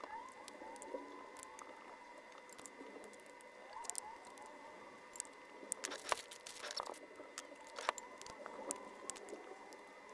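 A metal spoon clinking and scraping against a ceramic bowl while eating, with a plastic packet crinkling and tearing about six seconds in. Faint rising and falling whines sound in the background.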